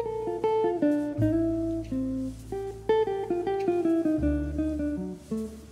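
Background music: a plucked-string melody of quickly changing notes over held bass notes.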